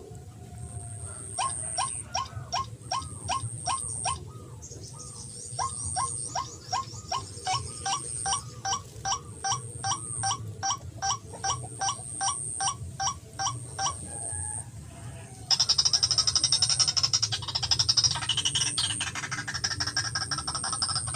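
White-breasted waterhen calling: a long run of short, repeated rising notes, about two to three a second, with a brief pause partway through. About fifteen seconds in, a louder, dense rasping chorus takes over.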